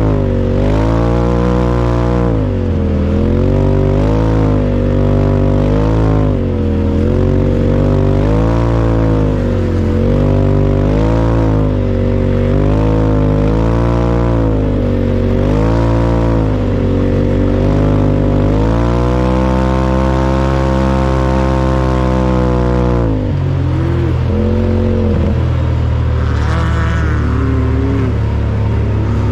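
UTV engine running hard on the dunes, its pitch rising and falling every couple of seconds with the throttle. It holds a steady high speed for a few seconds past the middle, then drops back and runs more unevenly near the end.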